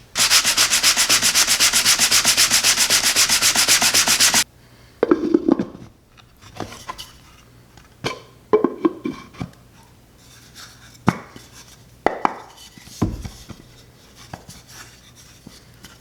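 Sanding a wooden box: a loud, rapidly pulsing scratchy noise for about four and a half seconds that stops abruptly, followed by scattered light knocks and scrapes as the wood is handled.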